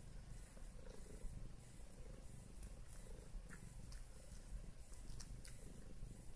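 Domestic cat purring steadily while kneading, a low fluttering rumble, with a few faint clicks a little past halfway.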